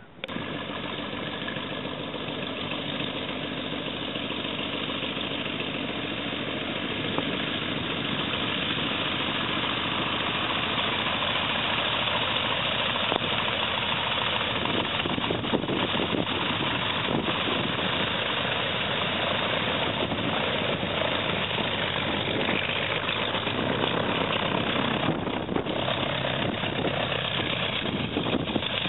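Stearman biplane's radial engine running steadily at idle, a little louder after several seconds.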